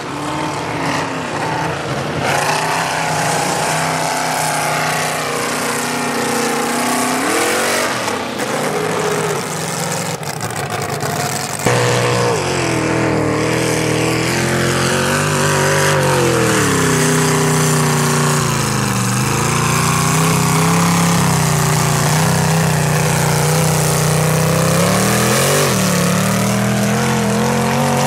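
Lifted mud truck's engine revving hard as it drives through a mud pit, its pitch climbing and dropping again and again, over the hiss of tires churning mud and water. The sound steps up suddenly in loudness about twelve seconds in.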